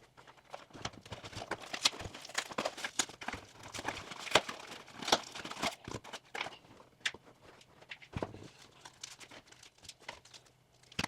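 Irregular clicks, taps and light crinkles of a replacement battery kit being handled: small plastic parts and packaging picked up and set down, busiest in the first seven seconds, then sparser.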